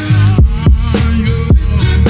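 Music soundtrack with a drum beat, drum hits landing about every third of a second.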